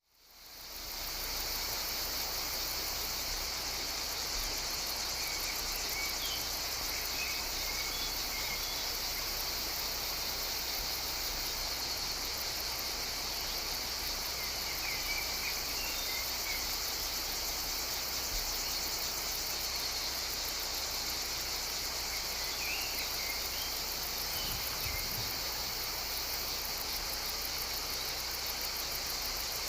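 Dense, steady chorus of insects, a continuous high-pitched buzz that fades in over the first second and then holds level. A few faint short chirps sound now and then beneath it.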